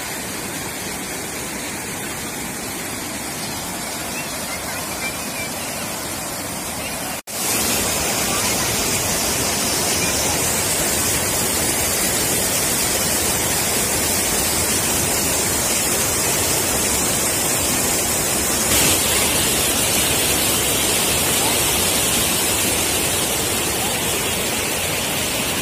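Floodwater from an overflowing river rushing over a low dam and churning through rapids, a steady loud rushing of water. It breaks off for an instant about seven seconds in and comes back louder.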